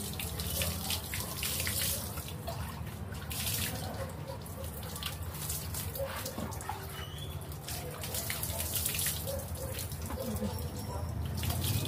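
Water splashing and dripping onto a dog being bathed by hand, poured over it from a plastic bottle in irregular splashes, over a steady low hum.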